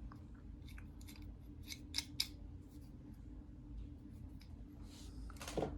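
Light metallic clicks and clinks of hand tools being handled in a tool bag, with a couple of sharper clicks about two seconds in, over a low steady hum. A brief rustle comes near the end.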